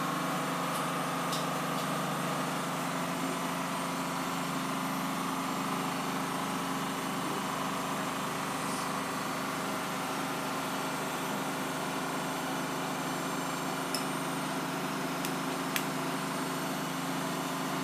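Steady mechanical hum with a few faint clicks as Lego bricks are handled, mostly near the end.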